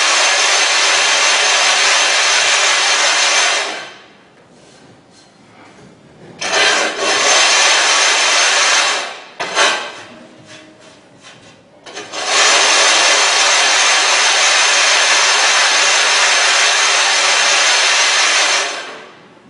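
Sharpening stone scrubbed back and forth on a flattening surface to grind out a hollow in its face: a steady gritty scraping that stops about 4 s in, returns for a few seconds with a short burst near 9.5 s, and runs again from about 12 s in until just before the end.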